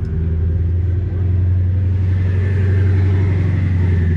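A car engine idling close by with a deep, steady note, getting a little louder about a second in.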